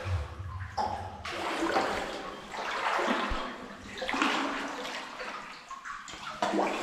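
Water sloshing and swirling around a person wading through a flooded mine adit, coming in surges about once a second with each stride.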